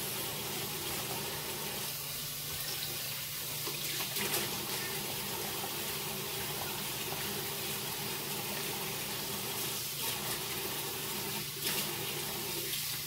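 Kitchen tap running steadily into a stainless steel sink while lettuce leaves are rinsed under it, with a few light knocks.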